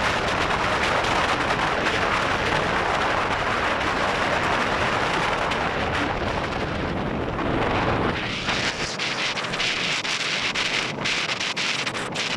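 Wind buffeting the microphone over the road noise of a moving vehicle, a loud, heavy rumble. About two-thirds of the way through the low rumble eases, leaving a higher hiss with many small crackles.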